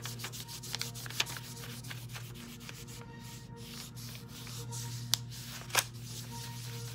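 Fingers rubbing back and forth over a sheet of paper laid on polymer clay, burnishing the clay into textured wallpaper: a steady dry scratchy rub with a few sharper ticks, the loudest about five to six seconds in. A steady low hum sits underneath.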